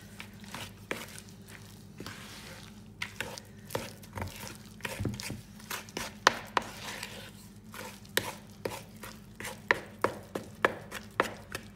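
Wooden spoon stirring stiff spotted dick dough in a plastic mixing bowl, the spoon knocking and scraping against the bowl in irregular strokes. The knocks are sparse at first and come about twice a second from about three seconds in.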